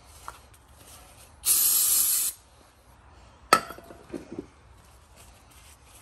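Aerosol brake cleaner sprayed in one burst of about a second, about 1.5 s in, rinsing the wire-brushed caliper bracket. About 3.5 s in comes a sharp metallic clink, followed by a few light knocks.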